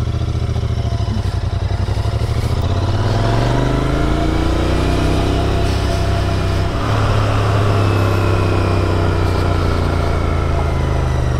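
Royal Enfield Continental GT 650's parallel-twin engine running under way, with wind rush. It rises in pitch as the bike accelerates over the first few seconds, dips briefly about seven seconds in, then holds steady and eases off slightly near the end.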